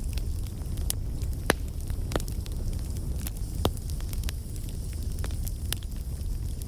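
Campfire burning, with irregular crackles and sharp pops over a steady low rumble. The loudest pops come about a second and a half in and again near four seconds in.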